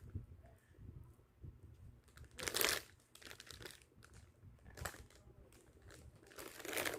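Plastic packaging crinkling and rustling as a squishy toy is unwrapped, in irregular handling noises with a louder burst about two and a half seconds in and another near the end.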